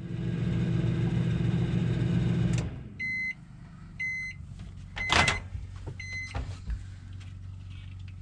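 Criterion microwave oven running with a steady hum that stops about two and a half seconds in, followed by its end-of-cycle beeps, about one a second, four in all. A loud clunk near the third beep is the door being opened.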